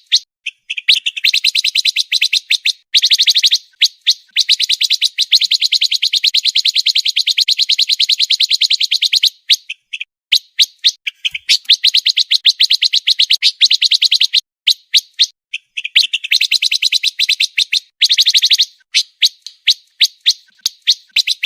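Pancawarna songbird singing a very fast, dense chattering song. Long runs of rapid, evenly repeated high chirps are broken by brief pauses, the tight 'speed rapat' song used as a masteran to tutor competition cage birds.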